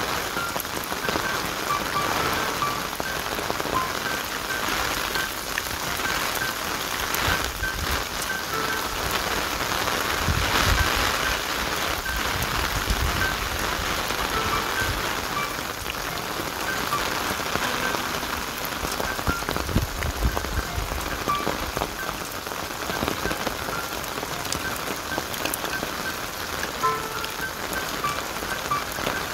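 Steady rain falling, briefly heavier about ten and twenty seconds in.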